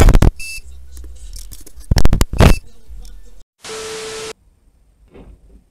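A loud bang at the start and another about two seconds in, then, nearly four seconds in, a short burst of TV-static hiss with a steady tone that cuts off suddenly.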